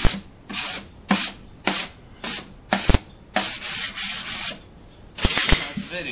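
Brisk rubbing strokes by hand across a gritty surface, about two a second, with one sharp knock about three seconds in and a few longer strokes after it.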